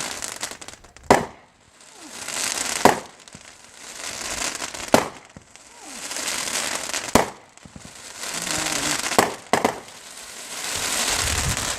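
Fireworks going off in a series of sharp bangs about two seconds apart. Each bang is followed by a second or so of crackling hiss, with two bangs close together near the end.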